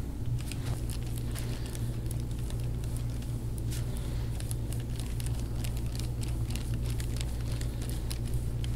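Crunching and crackling from the upper-back muscles as a forearm presses and drags through them in deep-tissue massage: many small, irregular cracks over a steady low hum. It is the kind of 'snap, crackle, pop' crunch taken as a sign of tight, knotted tissue letting go.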